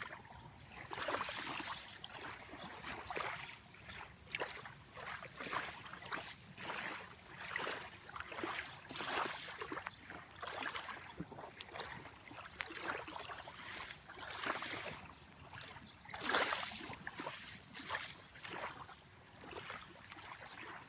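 Small sea waves lapping and washing against the shore in quick, irregular washes about a second apart, one louder wash about three-quarters of the way through.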